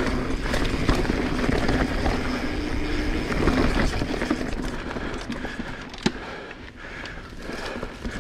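Transition Sentinel full-suspension mountain bike rolling down a dirt trail over roots: tyre noise and chassis rattle with scattered knocks, one sharp knock about six seconds in, over a low rumble. It is louder in the first half and eases off later.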